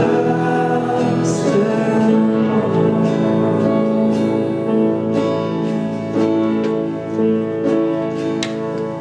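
Worship music: singing over strummed acoustic guitar.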